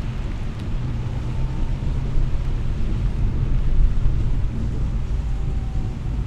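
Car driving on a rain-wet city street: a steady low rumble of engine and road noise with a faint hiss above it.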